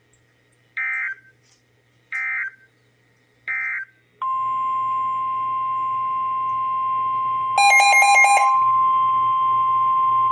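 Three short bursts of NOAA Weather Radio SAME digital code, then the steady 1050 Hz Weather Radio warning alarm tone starting about four seconds in, which signals that a warning message follows. About three and a half seconds after the tone starts, a louder pulsing beep sounds over it for about a second.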